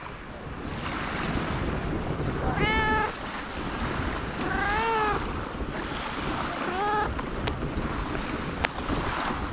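A tabby-and-white cat meowing three times, short calls about two seconds apart, the middle one rising and falling in pitch. A steady rush of wind on the microphone runs underneath.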